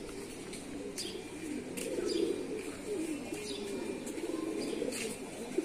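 Several domestic racing tippler pigeons cooing continuously in their lofts, their low warbling calls overlapping one another.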